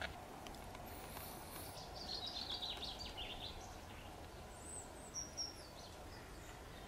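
Outdoor ambience with small birds chirping: a burst of twittering about two seconds in and a couple of higher, sharper chirps around five seconds in, over a faint steady low background rumble.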